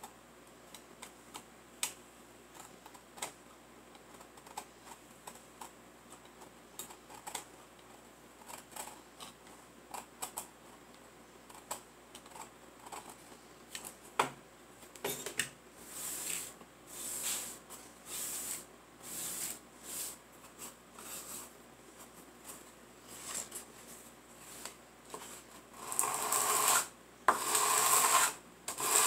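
Utility knife shaving and scraping a small wooden block: scattered short scrapes and clicks that turn into longer, steadier shaving strokes about halfway through. Near the end the block is rubbed back and forth on a sheet of sandpaper in loud, long sanding strokes.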